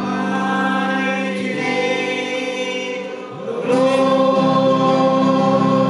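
Praise and worship song sung by a group of voices with instrumental accompaniment; the music dips briefly a little past three seconds in, then comes back with a new held chord.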